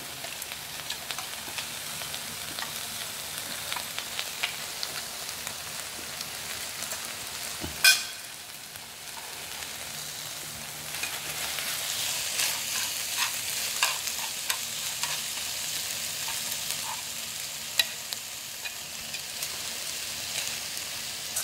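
Beef and vegetables sizzling steadily on a hot tabletop grill pan as they are turned with metal chopsticks, with small clicks of utensils against the pan. A single sharp knock about eight seconds in, and the sizzle grows louder from about halfway.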